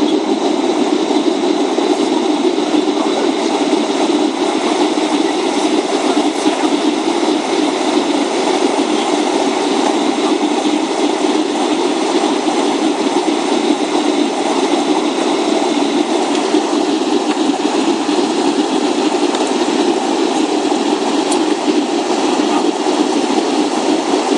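Steady cabin noise inside a Boeing 757 airliner: an even, unbroken rumble of engines and airflow.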